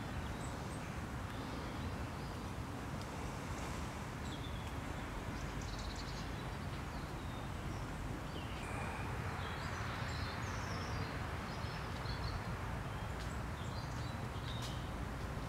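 Outdoor ambience: a steady low rumble with scattered short, high bird chirps, and a hiss that swells for a few seconds about halfway through.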